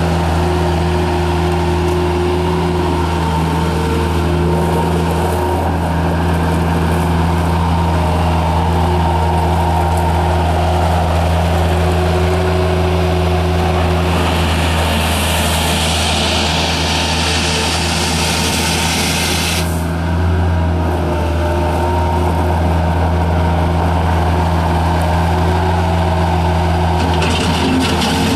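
Bobcat 753 skid steer's Kubota diesel engine running steadily. A hiss builds from about halfway through and cuts off sharply about two-thirds of the way in.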